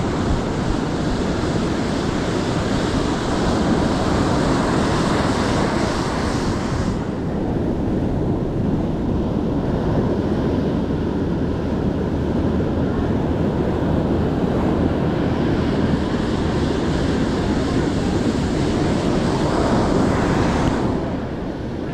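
Ocean surf washing onto a beach, with wind rumbling on the microphone. The hiss is brighter for the first several seconds and again near the end.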